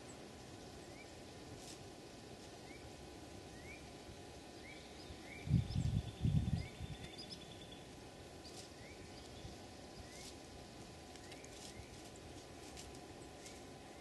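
Quiet woodland ambience. A faint short rising peep repeats roughly once a second, with a brief high trill near the middle, and light clicks of dry leaves being stirred where an eastern towhee forages in the litter. Two low thuds come about halfway through and are the loudest sound.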